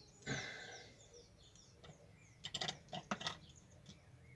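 Small birds chirping with short falling calls, over rustling and a cluster of sharp clicks and crackles, a little past halfway, from dry bark and wire being handled while a small orchid is tied onto a wooden mount.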